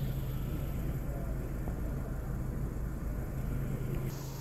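Steady low hum and rumble of a vehicle engine running at idle, with no speech; the background hiss steps up suddenly about four seconds in.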